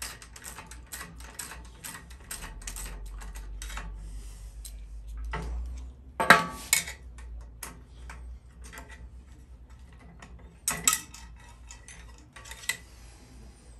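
A small ratchet clicking in a quick run as a cap screw is backed out of a steel steering column, then a sharp metal clank about six seconds in and a few clinks of tools and parts later on.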